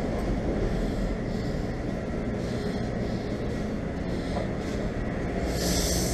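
Steady low rumble and hum inside a Chicago 'L' Orange Line railcar, with a short hiss just before the end.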